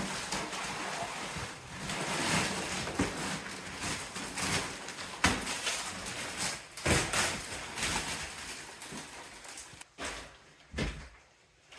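Plastic wrapping rustling and crinkling as a compressed foam mattress is cut open and unwrapped, with a few knocks and thumps of handling.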